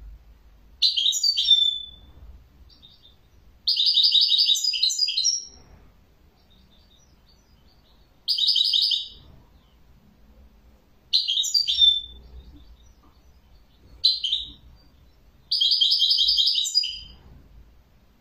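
European goldfinch singing in short phrases of rapid high twittering trills and chirps, some ending in a quick falling note. There are six phrases with pauses between them, and the longest run nearly two seconds.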